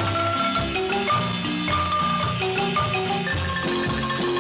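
Background music: an instrumental tune of pitched notes over a lower bass line, at a steady level.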